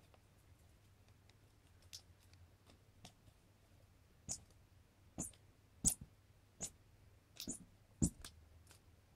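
Squeaky toy mouse giving a string of short high squeaks as a cat bats and flings it, about eight in quick succession, with a couple of dull thumps of the toy or paws on the carpeted floor.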